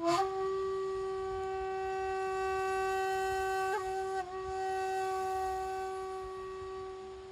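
Shakuhachi, an end-blown bamboo flute, sounding one long held note with a breathy attack. There is a brief waver in pitch about four seconds in, and the note slowly fades near the end.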